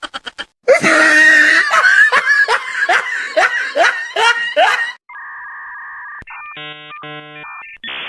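A meme sound clip of loud, shrieking laughter with rising yelps about twice a second, lasting about four seconds. It is followed by a steady electronic two-tone sound for about a second, then a short burst of synthesized beeps near the end.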